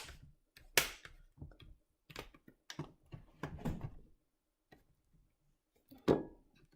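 Plastic snaps and clicks of a laptop's screen bezel being pressed back into place around the display. The clicks come singly and in a short cluster, with a pause before one last sharp snap near the end.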